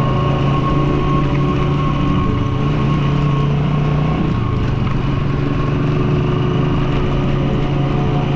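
Motor vehicle engine running steadily on the road, its low hum dipping slightly in pitch about halfway through.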